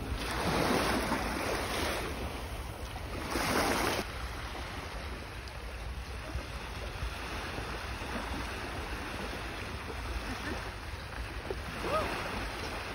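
Small waves lapping at the shoreline with wind on the microphone, the wash louder in the first few seconds and then steady.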